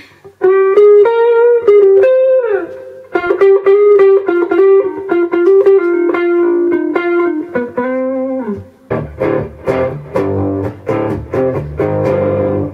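Custom electric guitar with DiMarzio Liquifire and PAF Joe pickups played through a Fractal Audio Axe-FX II amp modeller on a clean-to-lightly-distorted preset. It plays a single-note melodic line with bends and a downward slide, then changes about two-thirds of the way in to fuller, lower strummed chords.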